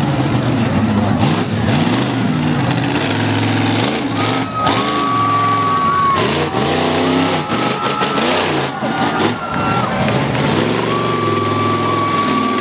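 Monster truck engine revving up and easing off again and again as the truck drives, its pitch rising and falling. A high steady whine is held for a second or so twice.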